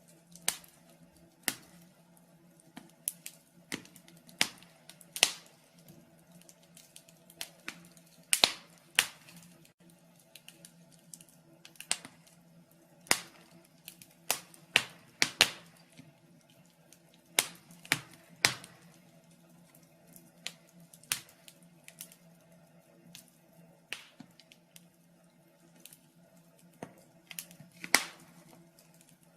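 Wood fire in a fireplace crackling: sharp, irregular pops and snaps, some much louder than others, over a faint steady hum.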